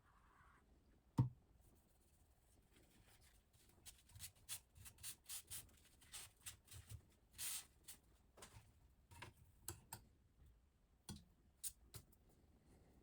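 Short scraping strokes of a silicon carbide oil stone drawn along a knife edge on a guided sharpening system, roughly two a second. A single knock comes about a second in.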